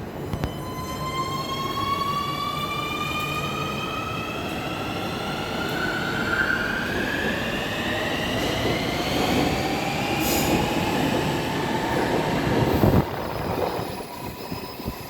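A Nuremberg U-Bahn DT3 metro train accelerating away, with a high squealing whine that rises steadily in pitch as it gathers speed over the rumble of the cars. Near the end it gets briefly louder, then fades.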